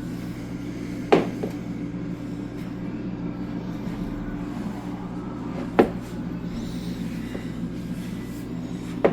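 Three sharp kitchen knocks, one about a second in, one near the middle and one at the end, over a steady low hum.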